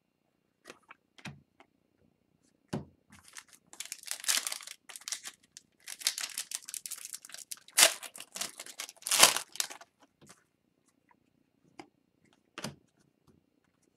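Crinkling and rustling from trading cards and their foil pack wrapping being handled, in bursts for several seconds in the middle, with a few short clicks and taps around them.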